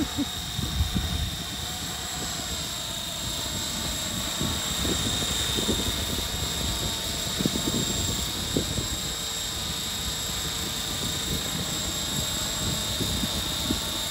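Align T-REX 500 electric RC helicopter flying: its motor and rotors make a steady high whine over a whirring rush. Irregular low thumps of wind buffet the microphone.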